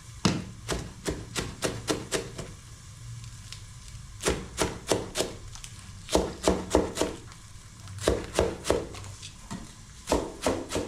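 Knife chopping coriander and spring onion on a chopping board: short runs of quick, sharp knocks, about four a second, broken by brief pauses.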